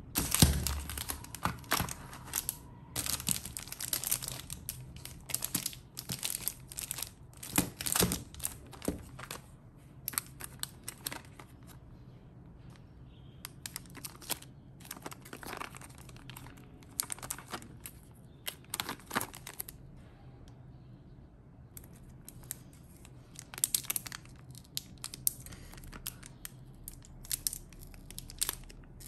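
Thin clear plastic packaging crinkling and rustling in irregular bursts as small wrapped items are handled and opened by hand, with a couple of quieter pauses.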